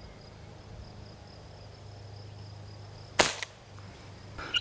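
A single shot from a Benjamin Sheridan .20 calibre multi-pump pneumatic air rifle, a sharp crack about three seconds in, with a fainter knock a fraction of a second later.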